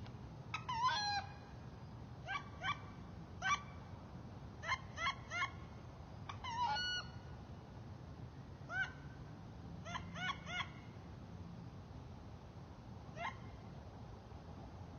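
Wood duck squeals: short, rising whistled calls repeated irregularly, some in quick runs of two or three.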